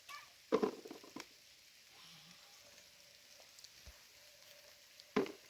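Steady patter of heavy rain, with a few short clucking calls from chickens: two about half a second apart near the start and one near the end.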